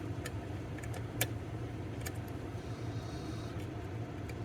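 Small, sharp, irregular clicks of a lock pick and tension wrench working the pins of an EVVA DPI pin-tumbler lock, over a steady low hum.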